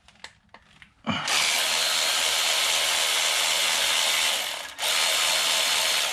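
Cordless electric ratchet spinning a bolt out. A few light clicks come first. The motor then runs steadily from about a second in, lets up briefly near the five-second mark, and runs again.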